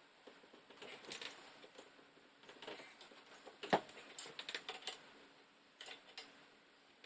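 Scattered light clicks and taps of tools and metal bike parts being handled during pedal removal, with one sharper knock a little past the middle.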